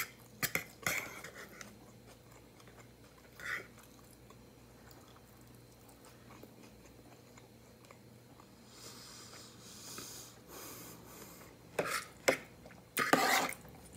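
Fork clicking and scraping against a plate as salad is picked up, with soft chewing of the salad in between. A few sharp clicks come near the start and a couple more near the end.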